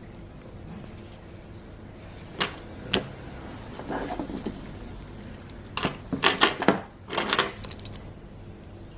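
Handling noise: two sharp clicks a couple of seconds in, then clusters of quick clicks and light rattles, the loudest a little past the middle.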